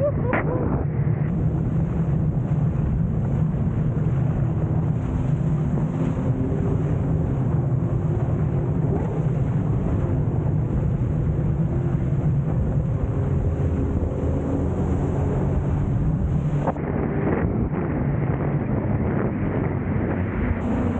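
Jet ski engine running steadily under way, with wind buffeting the microphone. There is a brief change in the sound about three-quarters of the way through.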